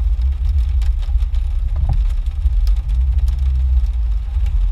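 Jeep engine and drivetrain running at low speed, heard from inside the cab as it crawls along a muddy trail: a steady low rumble with scattered light ticks.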